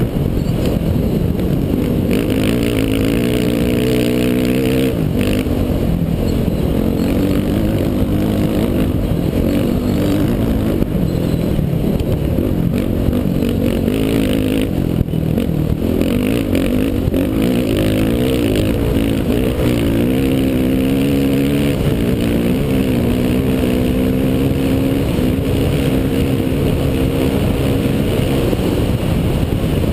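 Dirt bike engine running hard, its pitch rising and falling repeatedly with throttle and gear changes, over steady wind noise on the helmet camera.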